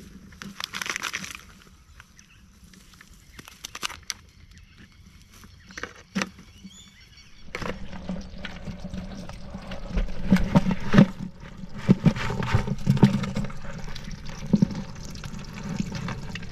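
Freshwater crayfish (yabbies) shaken from a net trap into a plastic bucket, their shells clattering and scrabbling against the plastic, with water dripping. Scattered clicks at first, then dense knocking and clattering through the second half.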